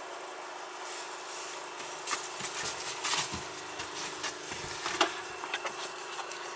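Rustling and irregular sharp knocks of the camera being handled close up, the loudest about five seconds in, over a steady faint hum.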